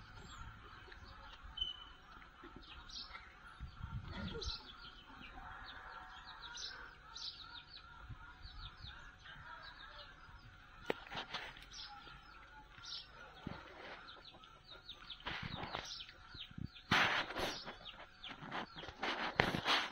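Small birds chirping over and over in short falling notes, with knocks and clatter from the air-intake parts being handled in the second half, the loudest a few seconds before the end.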